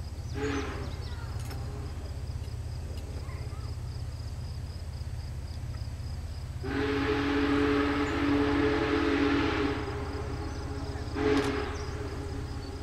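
Distant steam whistle of Union Pacific Big Boy 4014 on approach: a brief toot, then a long blast of about three seconds beginning about seven seconds in, then a short toot near the end.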